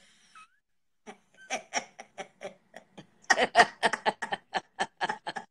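Two women laughing: a run of short laughing breaths, about four a second. It starts softly about a second in and grows much louder about halfway through.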